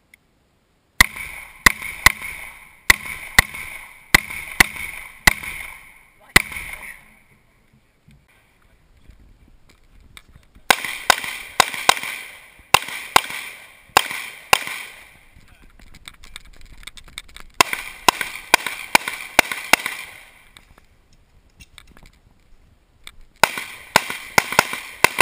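Pistol shots fired rapidly during a USPSA practical-shooting stage, mostly in quick pairs. They come in four strings separated by pauses of a few seconds as the shooter moves between positions.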